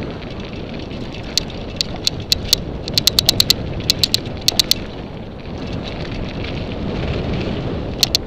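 Mountain bike descending a dirt forest trail, filmed from the rider: a steady rushing rumble of riding noise, with bursts of sharp clicks and rattles as the bike jolts over the bumpy trail, thickest about three seconds in and again near the end.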